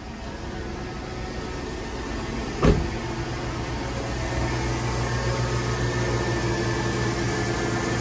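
2005 Chevy Tahoe's LS V8 idling steadily soon after start-up, its valvetrain quiet with no lifter tick now that the leaking oil pickup tube O-ring has been replaced. A single sharp knock comes about two and a half seconds in, and the engine sound grows slightly louder toward the end.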